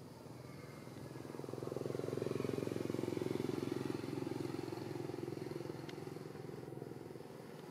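Motorbike passing by, its engine growing louder over the first two seconds, loudest around three seconds in, then fading away.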